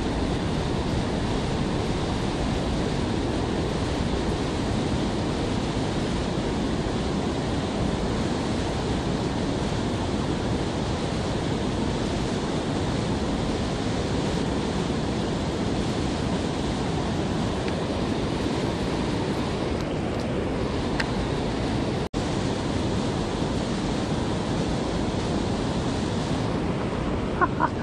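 Steady rush of river water pouring over a low weir and running through shallow rapids, with a momentary dropout about 22 seconds in.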